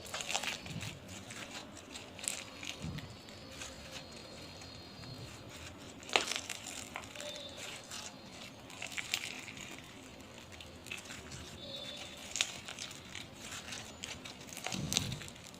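Slime being squeezed and pressed by hand, giving irregular small crackles, clicks and pops, with a sharper click about six seconds in.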